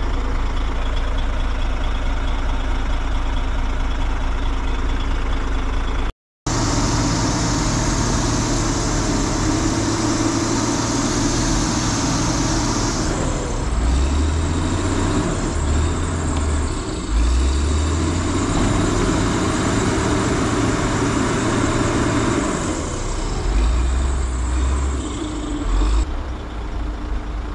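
Heavy diesel engines of trucks and earthmoving machines running, their low rumble swelling and easing several times in the second half. The sound drops out completely for a moment about six seconds in.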